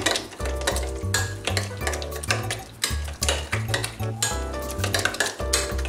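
A fork stirring a wet mixture of milk-soaked bread and beaten eggs in a glass bowl, with repeated scrapes and clinks against the glass. Background music with a repeating bass line plays underneath.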